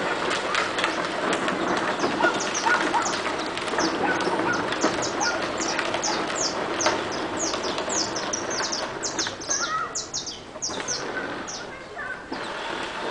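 Saffron finch singing: a fast, run-on series of short, high chipping notes that goes on for about eleven seconds and then thins out, over a steady background noise.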